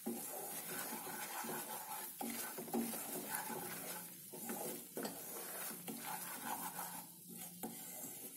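Wooden spatula stirring and scraping besan (gram flour) as it roasts in ghee in a non-stick pan over a low flame, with faint sizzling.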